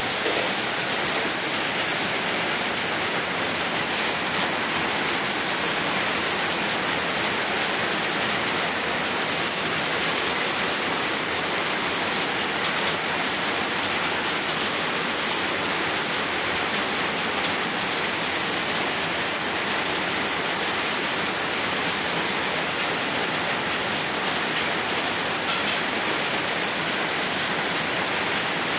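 Heavy typhoon rain pouring down steadily as an even, unbroken hiss, splashing onto wet concrete and puddles.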